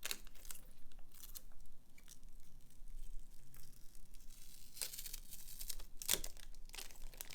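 Adhesive plastic film being peeled off a new motherboard, crackling and tearing in irregular short bursts, with the strongest rips about five and six seconds in.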